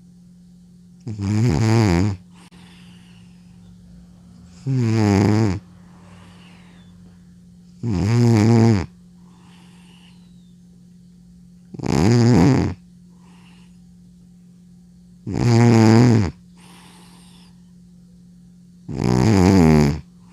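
Elderly cat snoring loudly in its sleep: six long snores about every three and a half seconds, each lasting about a second, with a faint breath between them.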